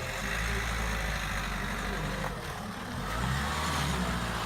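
A motor vehicle passing on the road, its engine and tyre rumble swelling, easing about two seconds in, then swelling again.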